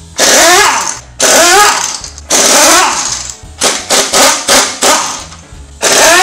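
Impact wrench hammering on a car's front-wheel lug nuts, loosening them to take the wheel off: three loud rattling bursts of about a second each, then a run of short blips, and another burst near the end.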